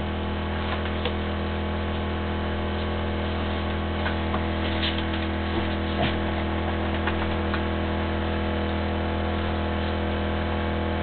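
A steady low hum with evenly spaced overtones, unchanging throughout, with a few faint taps scattered through it.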